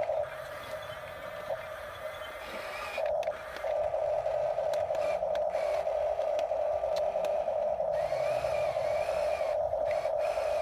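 Steady whirring of a toy RC construction vehicle's small electric motor and gears, dropping off for about three seconds near the start.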